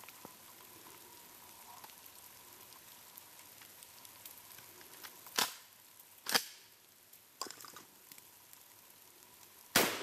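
Gunshots from a firearm: sharp cracks about five and a half and six and a half seconds in, a fainter one around seven and a half, and the loudest just before the end, the shot that blows snow off a snowman target.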